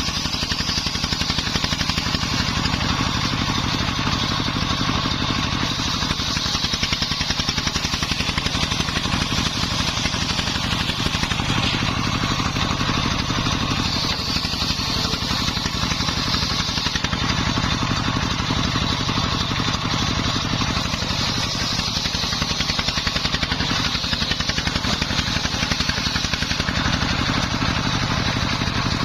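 Dongfeng 24 hp single-cylinder diesel engine running steadily under load, driving a homemade circular saw, with a high whine from the saw that swells and fades as timber is fed through the blade.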